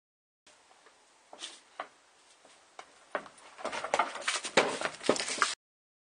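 Shoes and a soccer ball knocking on wooden deck boards: a few scattered taps, then a quick, louder run of taps, scuffs and steps in the last two seconds, cutting off suddenly.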